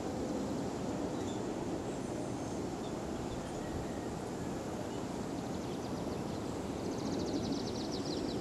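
Outdoor ambience: a steady low rumble of noise with a few faint high chirps, and a rapid high trill near the end.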